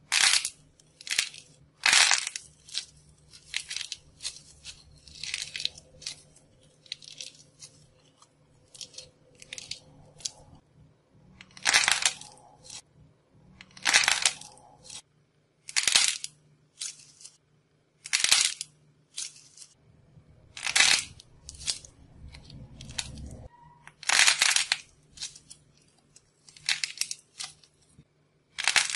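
Glitter-coated clay balls cracking as fingers squeeze them: the dried outer shell splits in a string of short, crisp crackles, about one every second or two.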